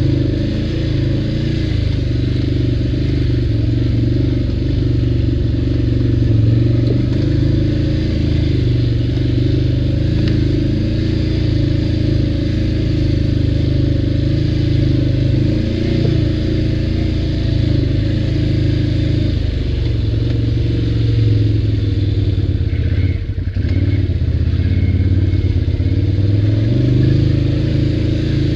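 ATV engine running while riding, its pitch rising and falling with the throttle. It briefly eases off about two-thirds of the way through, then picks up again.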